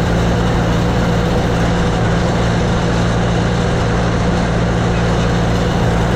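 Tractor engine running steadily with a constant low hum under a loud wash of mechanical noise.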